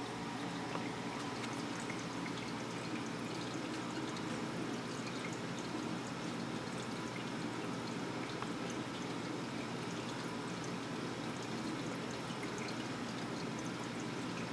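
Water steadily trickling and pouring in a reef aquarium's circulation, an even running-water sound.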